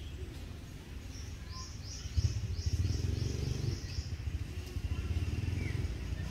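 A bird calling in a quick run of seven or eight short rising notes, about three a second, starting about a second and a half in and stopping before the four-second mark. Under it runs a low rumble that grows louder just after two seconds and stays the loudest sound.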